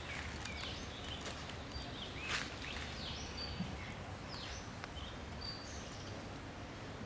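Outdoor background noise with a low steady hum and several faint, brief high-pitched chirps and short falling calls from an animal or bird.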